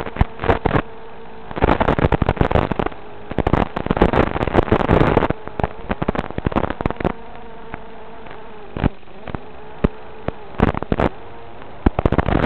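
FPV quadcopter's motors buzzing, the pitch wavering with the throttle, broken by loud crackling bursts that are densest between about two and five seconds in.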